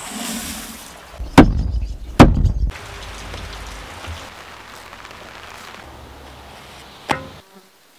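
Dry grain pouring from a metal bowl into a wooden vessel with a hiss, followed by two heavy thuds about a second apart. A soft steady rustle follows, then one more sharp knock near the end.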